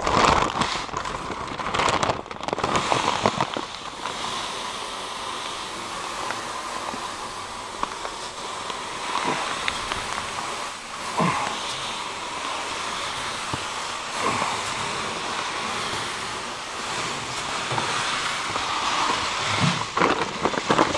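Rapeseed pouring out in a steady stream of small round seeds, a continuous hiss with a few short clicks.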